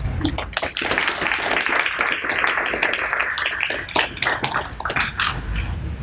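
Audience applauding, a dense patter of many hands that starts about half a second in and dies away about five seconds in.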